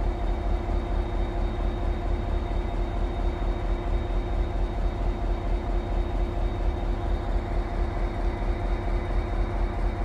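EMD GP49 diesel-electric locomotive's turbocharged 12-cylinder 645 engine idling: a steady, low, rhythmic throb with a constant tone above it.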